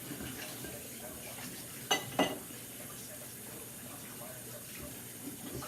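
Spatula stirring a gooey glue and contact-solution mixture in a bowl, with a faint wet sound, and two sharp knocks of the spatula against the bowl about two seconds in.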